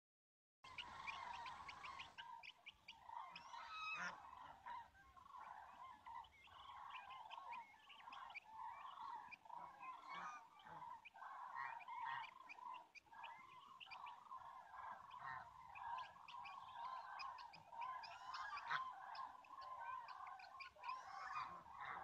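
A migrating flock of common cranes calling in flight overhead: many faint, overlapping calls that run together into an unbroken chorus.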